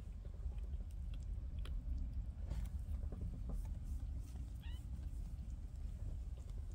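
A Siberian kitten gives one short, faint rising mew about four and a half seconds in. Under it run a low steady rumble and small soft clicks and rustles of fur and blanket.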